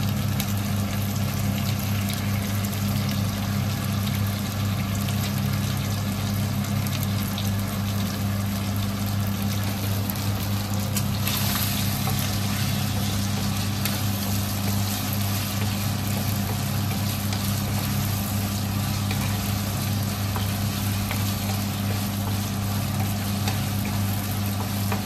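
Chicken pieces and mushrooms sizzling in a frying pan as cream is stirred in with a wooden spatula, over a steady low hum.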